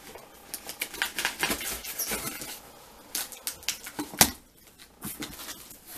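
A knife slitting the packing tape along a cardboard box's seam, heard as a run of quick scratchy clicks and rips, then one sharp crack a little after four seconds as the box is opened.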